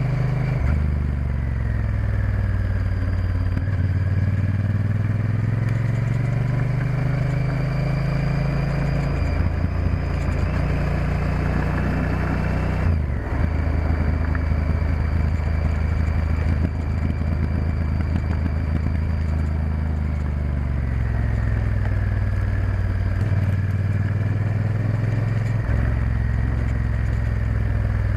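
Honda Varadero XL1000's V-twin engine pulling the bike along at road speed. Its note rises and falls with the throttle and steps abruptly with several gear changes, over a steady rush of noise.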